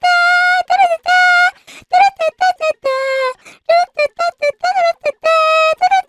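The anime girl meme voice: a high-pitched girlish voice singing wordless "da da da" syllables. Quick short notes alternate with several held notes of about half a second.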